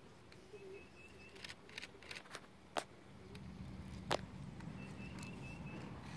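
Quiet outdoor ambience: a bird gives two quick runs of four or five high chirps, a few sharp clicks stand out (the loudest about a third and two thirds of the way through), and a low rumble builds from about halfway.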